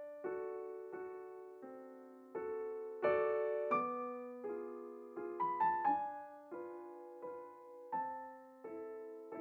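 Background piano music: a slow run of struck notes and chords, each left to ring and fade before the next.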